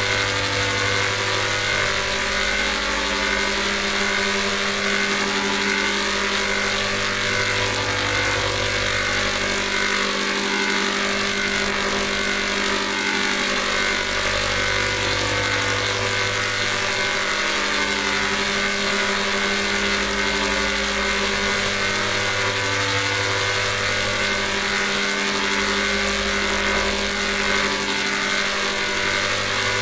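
Heavily processed electronic sound effect: a dense, steady drone of many sustained tones over a low bass that switches between two notes about every three to four seconds.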